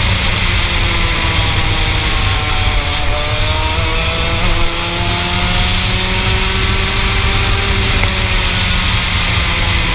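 Rotax Max 125 single-cylinder two-stroke kart engine at high revs, heard close up from on board. Its pitch sags for a few seconds, climbs again, then sags and climbs once more as the kart goes through the bends.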